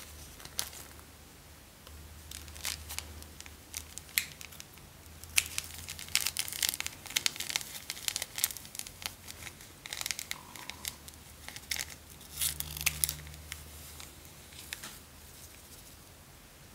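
Small plastic glitter bags crinkling and being torn open by hand: irregular sharp crackles, busiest in the middle and dying away near the end.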